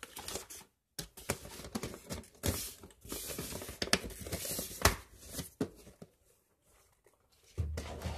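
Crinkling and rustling of medicine packets and boxes being packed back into a storage box, with small knocks and clicks.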